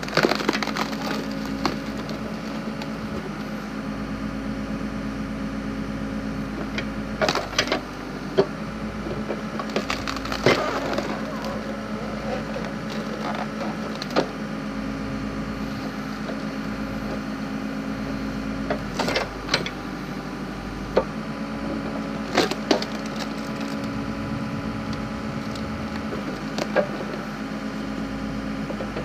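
Backhoe engine running steadily while its hydraulic log splitter attachment forces through firewood logs. Sharp cracks and splintering come several times at irregular moments as the wood splits open.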